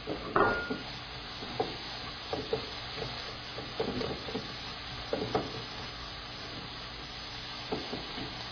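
Mixed vegetables and scrambled egg sizzling in a hot non-stick pan, with a steady hiss, while a wooden spatula stirs them, scraping and knocking against the pan now and then; the loudest knock comes about half a second in.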